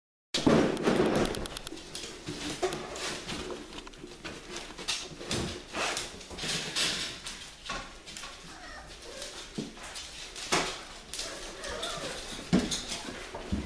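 Dogs moving about on a tile floor: scattered clicks and knocks, loudest just after the start.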